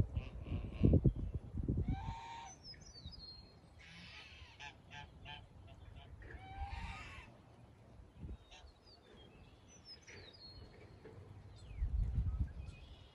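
Geese honking, about three calls a couple of seconds apart, with small birds chirping between them. Low thumping noise comes at the start and again near the end.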